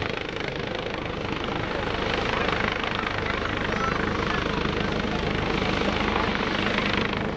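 AgustaWestland HH-139A (AW139) helicopter hovering: a steady, fast rotor beat over the noise of its twin turboshaft engines.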